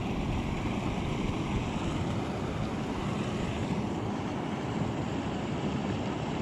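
Wind blowing across the microphone: a steady rushing noise with no breaks.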